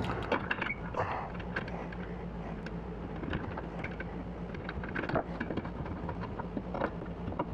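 Scattered light clicks and knocks of metal hardware being handled and fitted, as a lock latch is put onto a truck-bed slide bracket, over a steady low hum.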